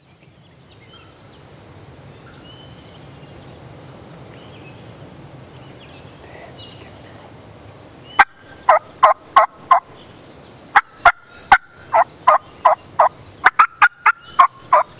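Turkey yelping: runs of loud, short, evenly spaced yelps, about three a second, starting about eight seconds in, with a few sharp clicks among them. Faint songbird chirps sound before the yelps begin.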